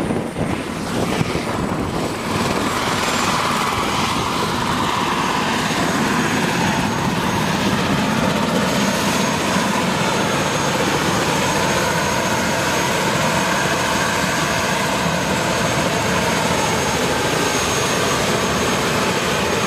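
Eurocopter EC130 light turbine helicopter running on the ground with its rotor turning: a steady, loud rush of rotor and engine noise with a thin high turbine whine over it.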